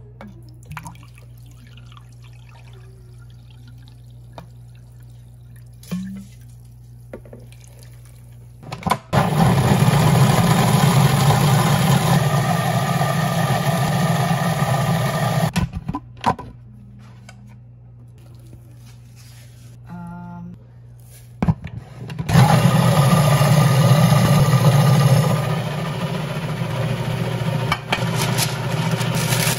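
Food processor running, churning a thick black bean and date brownie batter. It runs in two spells: from about nine seconds in for some six seconds, then after a pause again from about twenty-two seconds. Near the end the sound drops to a lower, noisier rustle as parchment paper is handled.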